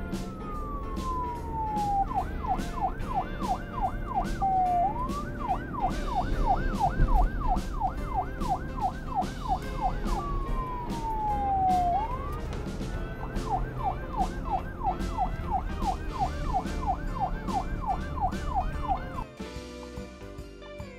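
Toy police car's electronic siren: a slow falling wail alternating with a fast yelp of about five whoops a second, played twice through and cutting off near the end. Background music with a steady beat plays underneath.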